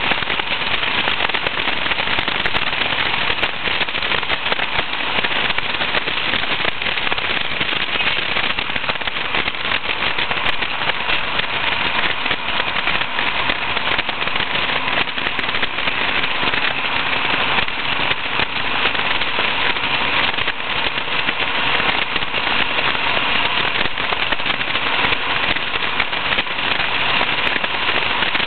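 Wind buffeting the camcorder microphone of an open Westfield SE sports car at road speed, a steady crackling rush. The car's engine runs beneath it.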